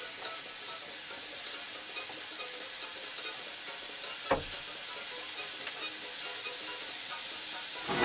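Marinated sweet potato cubes sizzling in a hot frying pan: a steady hiss, with a single sharp click about four seconds in.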